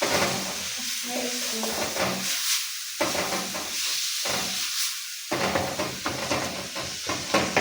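Chopped onions and garlic sizzling as they fry in a little oil, stirred repeatedly so the spoon scrapes against the pan.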